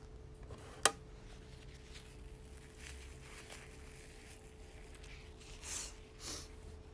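A sharp click about a second in, then a few soft sniffs through the nose, the two clearest close together near the end, over a faint steady hum.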